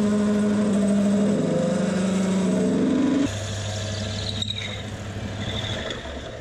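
Warco WMT 300 lathe running as a large twist drill in its tailstock bores out a hole in a bar, giving a steady motor drone. The spindle speed is a bit high for the job. About three seconds in, the drone drops in level and falls to a lower pitch, then slowly fades.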